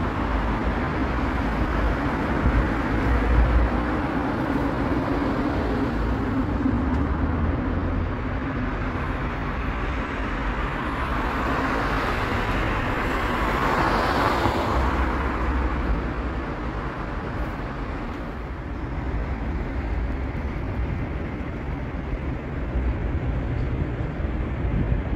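Steady city road-traffic noise, with a vehicle passing by about halfway through, swelling up and then fading.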